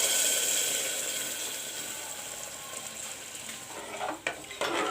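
Sizzling as boiled moong dal is poured into a hot pan of fried masala. The hiss is loudest at the start and fades over a few seconds, and a spoon knocks against the pan a couple of times near the end.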